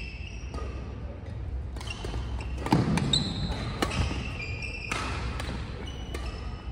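Badminton rally: several sharp cracks of rackets striking the shuttlecock, with short high squeaks of court shoes on the wooden floor as the players move.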